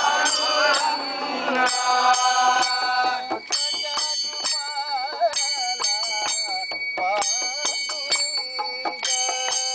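Small brass hand cymbals (jalra) struck together in a steady rhythm, about three strikes a second, each stroke ringing on, under a group of voices singing a devotional chant.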